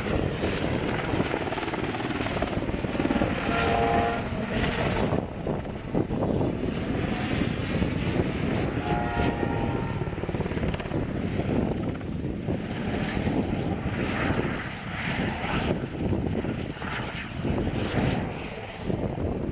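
Eurocopter helicopter flying display manoeuvres overhead: the beating rotor noise rises and falls as it banks and turns. A brief whining tone comes through about three to four seconds in and again around nine seconds.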